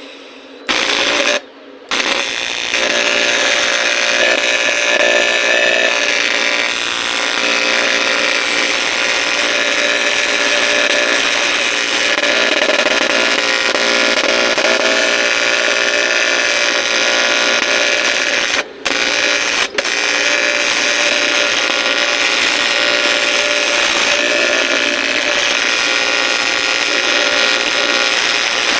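TIG welding arc on aluminium, a terrible-sounding, steady harsh buzz with many even tones in it. The arc breaks off briefly just after it starts, and twice for an instant about two-thirds of the way through.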